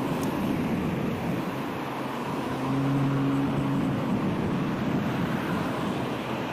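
Road traffic on a busy multi-lane street heard from a moving bicycle, with wind rushing over the microphone. About two seconds in, a low steady hum rises over the noise for a second and a half, then fades.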